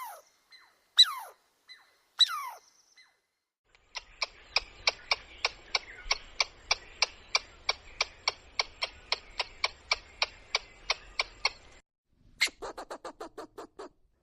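Squirrel chirping: three sharp falling chirps, then a long, even run of sharp chirps at about four a second. After a brief pause near the end the chirping starts again, faster.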